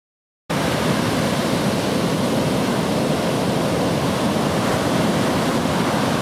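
Steady rushing noise of ocean surf on the beach, cutting in suddenly about half a second in after silence.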